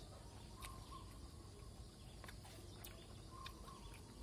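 Near silence: faint outdoor background hum with a few soft, brief ticks and chirps.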